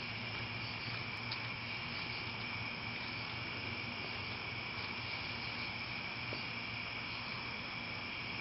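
Steady evening insect chorus, a continuous high-pitched trill, with a low steady hum beneath.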